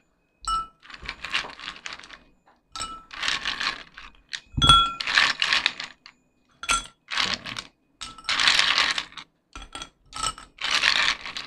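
Ice cubes dropped by hand into drinking glasses, clinking against the glass with a short ringing ding about five times, with ice rattling and scraping between the clinks.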